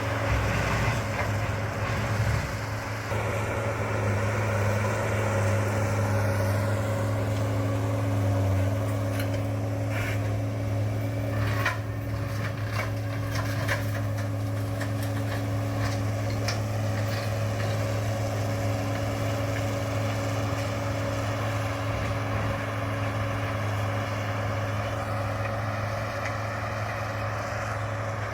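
John Deere 328D skid steer's diesel engine running steadily at working speed while driving a rotary brush-mower deck. A cluster of sharp cracks and snaps comes about ten to fourteen seconds in.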